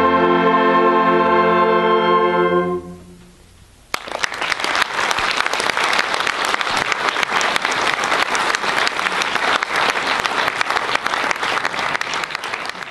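Concert wind band holding a final sustained chord, cut off about three seconds in and fading into the hall's reverberation. About a second later, audience applause breaks out and continues.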